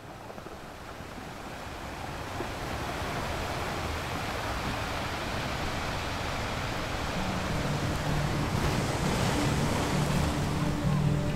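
Ocean surf: a steady rush of breaking waves that fades in and swells louder. Low sustained tones come in over the last few seconds.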